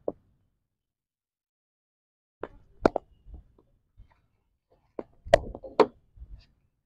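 Sharp knocks of a cricket ball landing on a concrete practice pitch and being blocked by a wooden bat in a front-foot defensive shot. They come in two groups, the louder one about five seconds in.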